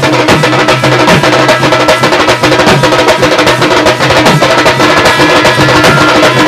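Maharashtrian baja street band playing loudly. A row of red barrel drums struck with sticks keeps up a fast, dense beat over sustained pitched notes.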